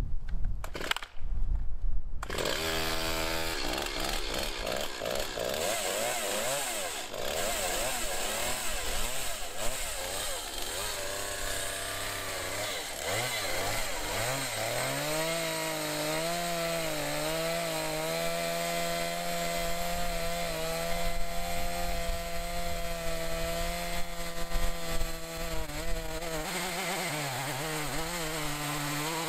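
Small two-stroke Stihl MS 170 chainsaw, mounted in an Alaskan chainsaw mill, starting up after a few loud pulls and catching about two seconds in. It then runs at high revs, its note settling into a steady pitch under load as the bar rips lengthwise through a log, and dips lower near the end.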